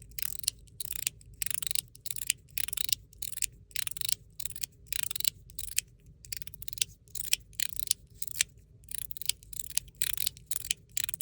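Stainless steel haptic fidget slider worked back and forth, each stroke a short metal scrape ending in clicks from its spring-loaded internal metal pieces, about two strokes a second.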